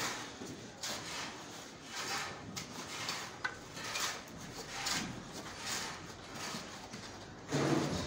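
A long spirit level handled on a course of stone blocks and mortar: a series of short scrapes and rubs about once a second, with a heavier knock near the end.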